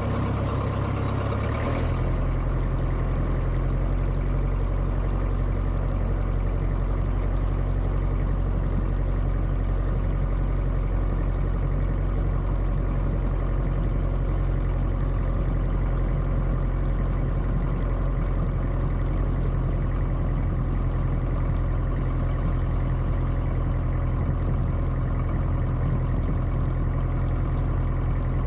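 Piper J3 Cub's engine running steadily at taxi power, picking up a little in revs about two seconds in and then holding even.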